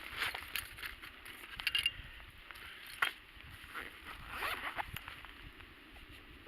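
Scattered clicks, rustles and short scrapes of hands and tackle at work in a small boat, unhooking a small pike.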